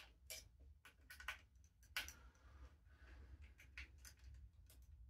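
Faint, irregular light clicks and ticks of a small T10 Torx screwdriver turning screws down into an airsoft rifle's metal parts, with one sharper click about two seconds in followed by a brief scrape.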